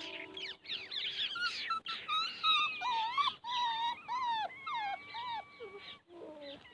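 A litter of young desi (Indian native dog) puppies whining and squealing, several high, wavering cries overlapping one another, thinning out near the end.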